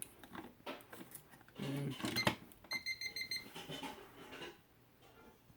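Electronic keypad lock on a Liberty gun safe giving a quick run of short high-pitched beeps about three seconds in, just after a click, as its fresh 9-volt battery is put back in place.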